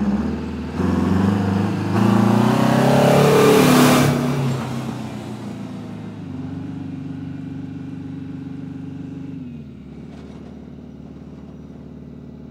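Farm tractor engine pulling away, its pitch climbing as it revs up and loudest about three to four seconds in. It then runs at a steady note that drops and fades near the end.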